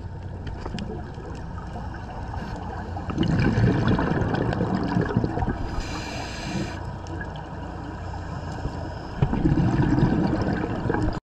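Scuba regulator breathing heard underwater: a hissing inhalation about six seconds in, between two rumbling bursts of exhaled bubbles, one about three seconds in and one near the end. It cuts off suddenly at the very end.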